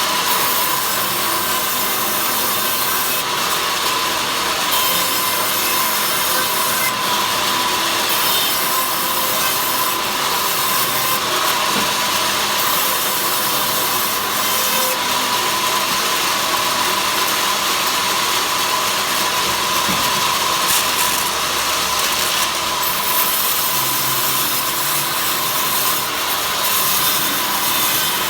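Power saw cutting wood, a steady, unbroken rasping cut with a constant high tone running under it, likely ripping stock into thin slats.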